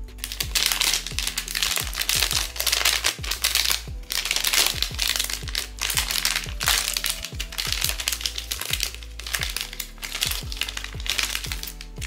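Blind box packaging crinkling and crackling as it is torn open and handled, in dense irregular bursts, over background music.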